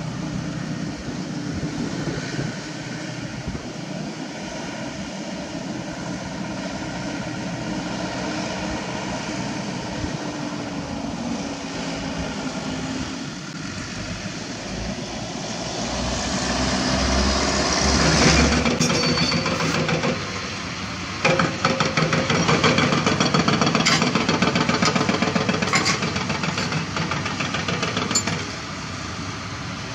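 Heavy diesel trucks running steadily, swelling louder about halfway through. Then, about two-thirds of the way in, a louder, fast, even metallic clatter from a Hitachi Zaxis 200 excavator on a self-loader truck, stopping shortly before the end.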